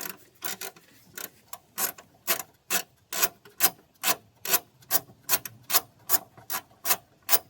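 Ratchet wrench clicking in an even rhythm, about two to three strokes a second, as a seized nut is backed off through a bolt-extractor socket hammered onto it.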